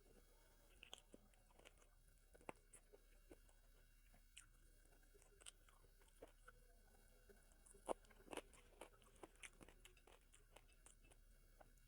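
A person chewing and biting food close to the microphone: faint crunching with scattered short clicks, the sharpest about eight seconds in.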